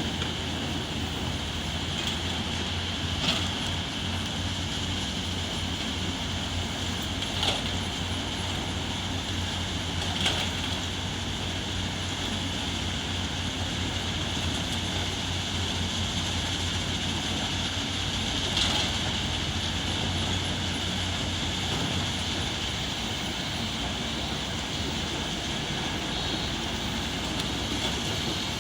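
Heavy earthmoving machinery at work: a steady diesel engine drone with a high steady whine over it, broken by four sharp metallic clanks.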